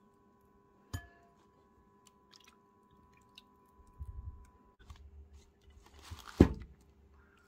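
Food-prep handling noises: a single sharp clink with a short ring about a second in, soft handling noise, and a heavy knock just after six seconds as the ceramic baking dish is moved by its handle on the table.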